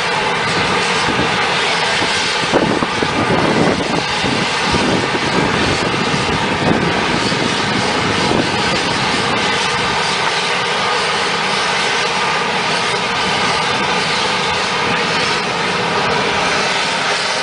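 Fumarole (steam vent) hissing: a loud, steady rush of steam escaping from the ground.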